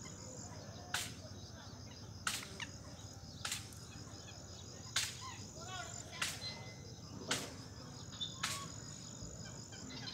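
A steady high insect trill, with a sharp click about every second and a quarter, louder than the rest, and faint bird chirps in between.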